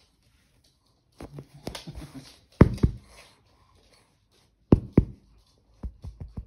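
A run of sharp knocks and taps with some rustling: two loud double knocks about two seconds apart, then a few lighter taps near the end.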